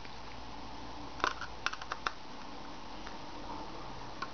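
Small sharp plastic clicks and taps, about half a dozen in a quick cluster a little over a second in and one more near the end, from hands and a small screwdriver working at the GPS sensor screws on a quadcopter's plastic top shell.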